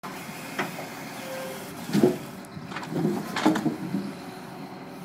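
Lorry-mounted hydraulic timber crane dropping a grapple-load of logs onto a log pile: several wooden knocks and clatters of logs landing, the loudest about two seconds in and more around three to three and a half seconds, over the steady hum of the running engine that powers the crane.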